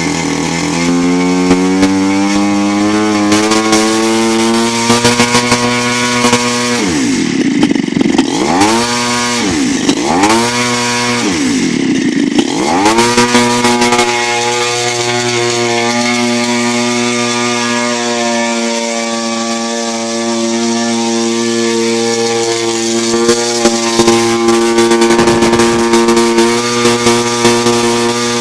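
CRRC Pro GF45i 45cc two-stroke gas engine revved up, its pitch rising over the first few seconds. It is then throttled back and opened up again three times in quick succession, held steady at high revs, and drops off near the end. It is running strong on carburettor settings that have not been adjusted.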